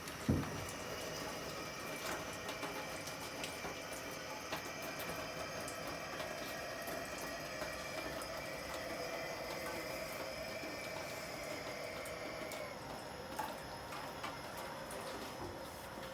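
Hobart UXT 10N dishwasher running its wash: a steady rush of spraying water over a pump hum that stops about three-quarters of the way through. A short knock sounds just after the start.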